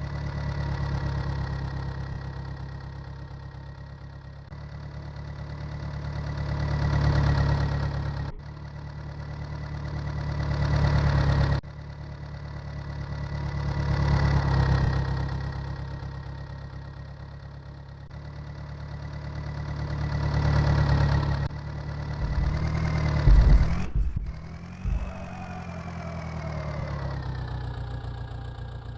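Engine idling, its level swelling and fading every few seconds, with sudden cuts about eight, eleven and twenty-four seconds in. The loudest moment is a few low thumps about twenty-three seconds in, followed by a change in engine pitch.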